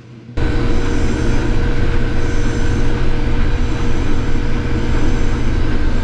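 Case IH 6088 axial-flow combine running at full throttle with the head and threshing rotor engaged, harvesting soybeans: a loud, steady machine noise with a steady whine, which starts abruptly about a third of a second in.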